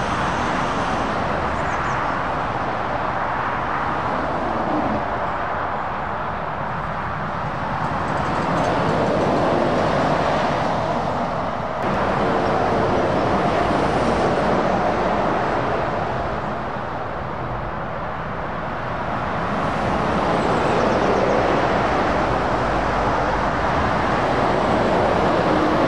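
Motorway traffic going past, lorries and cars: a steady tyre-and-engine roar that swells and fades every few seconds as each vehicle passes.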